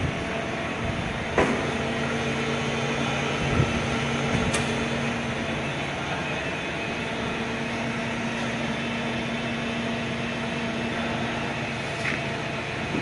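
Okuma MC-5VA CNC machining centre running on test: a steady mechanical hum that sets in with a sharp clack about a second and a half in and stops near the end with a click, with a couple of knocks between.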